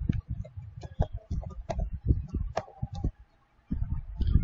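Irregular clicking of keys being typed on a computer keyboard, with a short pause a little after three seconds in.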